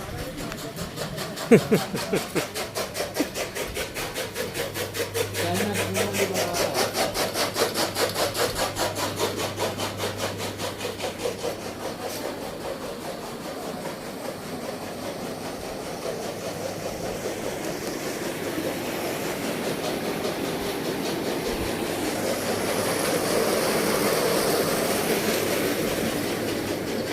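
Machinery on a farm running with a fast, even clatter, about five beats a second, over a low hum. Later the clatter gives way to a steady rushing noise that swells near the end.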